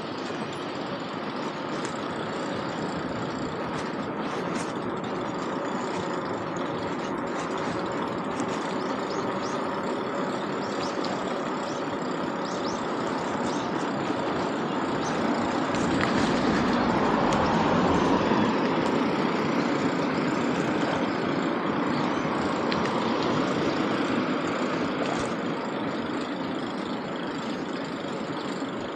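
Motor traffic: a steady drone of vehicle engines and tyres, swelling for a few seconds just past the middle as a heavy vehicle goes by, then easing back.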